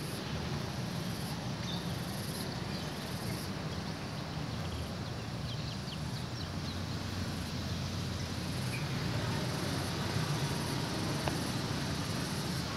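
Outdoor background ambience: a steady low rumble with insects chirping in a high band that comes and goes about once a second.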